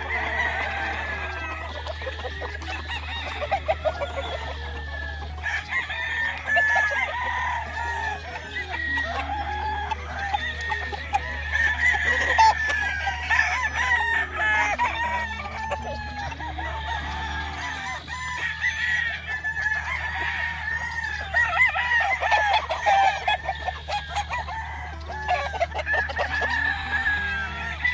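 Many gamefowl roosters crowing and clucking at once, their calls overlapping without a break, over a steady low hum.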